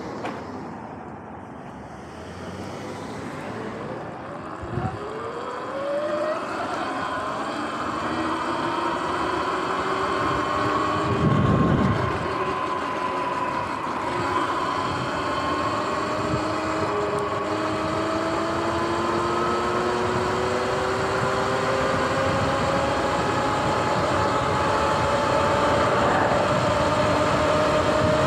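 Sur-Ron X electric dirt bike's motor whining and rising slowly in pitch as it accelerates hard toward its stock top speed of about 46 mph, over a growing rush of wind and road noise. A short knock comes about five seconds in and a brief louder rush at around twelve seconds.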